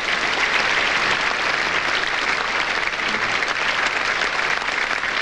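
Concert audience applauding, a steady, dense clatter of many hands.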